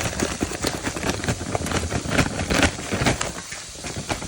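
Vegetables sizzling and crackling in hot olive oil in a frying pan, with a dense run of irregular pops and spatters.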